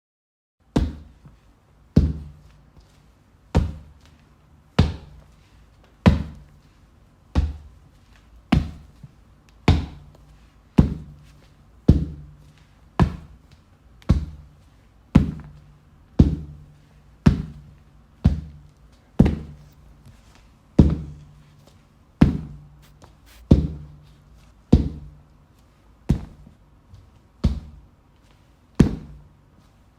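Giant footstep sound effect: heavy thuds at a steady walking pace, about one every 1.2 seconds, each with a short low ringing tail.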